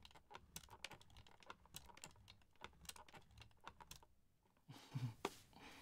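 Faint, irregular small plastic clicks from a 3D-printed screen hinge as the screen is tilted back and forth, then a brief pause and a soft knock about five seconds in.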